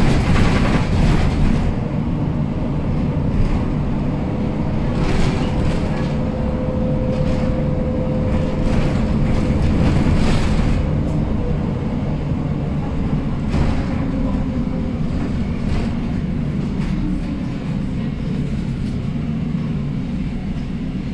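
MAN Lion's City city bus under way, heard from inside the passenger cabin: a steady engine and drivetrain rumble with occasional rattles. A thin whine comes in a few seconds in and fades out about halfway through, the kind of strange noise the owner puts down to its four-speed Voith automatic gearbox.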